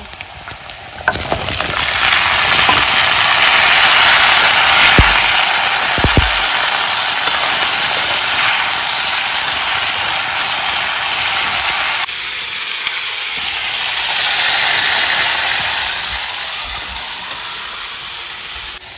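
Sliced pointed gourd and potatoes frying in hot mustard oil in an iron kadai, a loud sizzle that sets in suddenly about a second in. It dips a little about twelve seconds in and then swells again.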